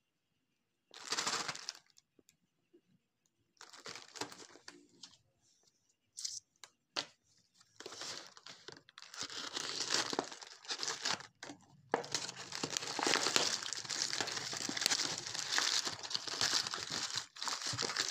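Plastic shrink-wrap being torn and peeled off a cardboard box of chocolate bars. It comes as short bursts of crinkling and tearing at first, then steady crinkling from about two-thirds of the way in.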